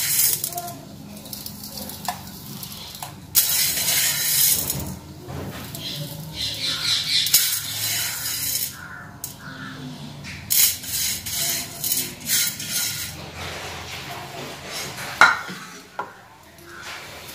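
Dry rice grains and flour being scooped and poured in a steel plate and bowl: several spells of grainy rustling, with a few sharp clinks of a steel spoon against the dishes.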